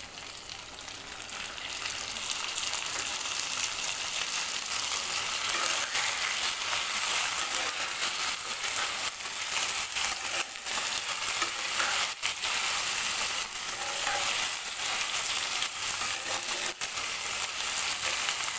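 Chicken pieces sizzling in hot oil in a pan with freshly added curd, the sizzle building over the first couple of seconds and then holding steady. A spatula stirs and knocks against the pan now and then.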